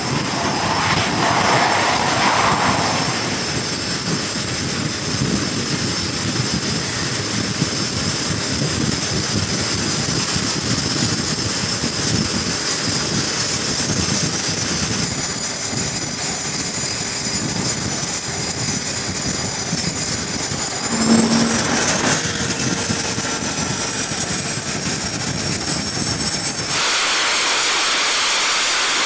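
T-45C Goshawk jet engines running on a carrier flight deck: a steady jet whine with high tones over a rushing noise. About two-thirds of the way through the whine glides up in pitch, and near the end the sound changes abruptly to a steady rushing hiss.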